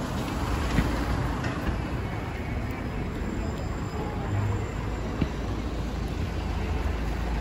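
Street traffic ambience: a steady low rumble of passing cars, with voices of passers-by and a couple of brief knocks.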